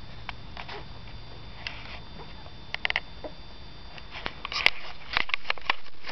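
Puppy nosing and burrowing into a fleece blanket, making soft rustling and sniffing with scattered light clicks. The sounds get busier in the second half.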